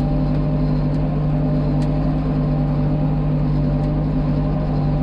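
Farm tractor's diesel engine running steadily under load, heard from inside the cab, while it pulls a heavy disc harrow in low-range fourth gear.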